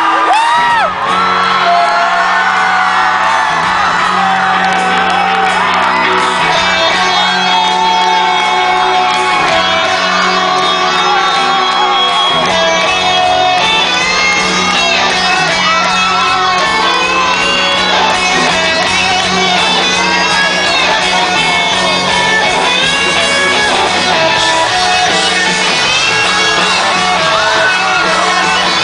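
Rock band playing live in a large arena hall, with electric guitars and a lead singer shouting and singing, heard from the crowd. The sound gets fuller in the bass about twelve seconds in.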